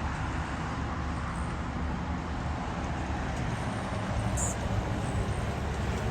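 Strong wind buffeting the microphone: a steady, deep rumbling rush. A single short high chirp cuts through about four and a half seconds in.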